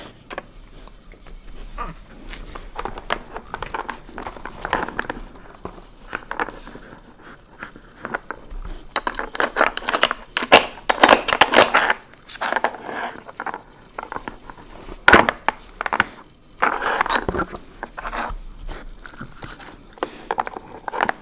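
A dog nosing and pawing at a Nina Ottosson Dog Hide N' Slide plastic puzzle board. Its plastic pieces scrape, slide and clack, mixed with sniffing and chewing of treats. The knocks and scrapes come in dense, irregular clusters, busiest around the middle, with a few sharper knocks later.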